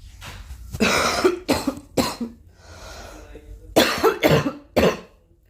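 A girl coughing in two bouts of about three coughs each, with a breath drawn in before and between the bouts.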